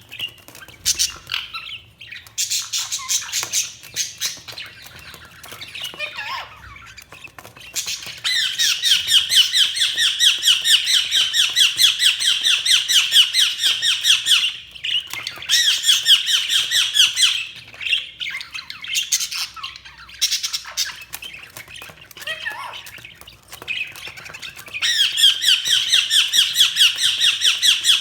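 Budgerigars chirping in long runs of rapid, high chirps, broken by short pauses. The longest run comes in the middle, and another starts near the end.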